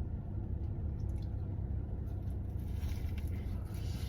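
Chewing a syrup-dipped bite of fried chicken tender and waffle: soft wet squishing with a few faint crunches, over a steady low hum.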